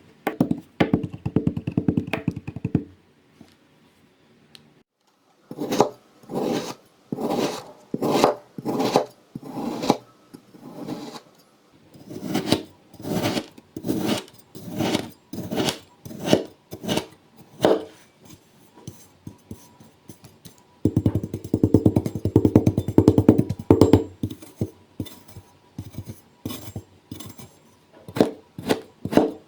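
Kinetic sand being cut and crunched: a run of rapid crunches, a brief pause, then a series of crunchy cutting strokes about two a second, with another fast run of crunches about two-thirds of the way through.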